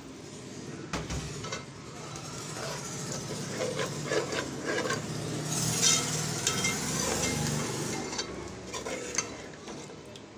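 A cup of water poured into a pot of hot chicken and pea masala, sizzling, while a metal spoon stirs and scrapes around the metal pot. The sizzling hiss is loudest about halfway through.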